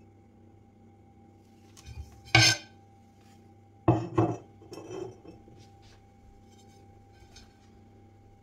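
Porcelain knocking and clinking against a hard surface as it is handled and set down. There is one sharp knock about two seconds in, a quick pair of knocks about a second and a half later, then a few softer clinks.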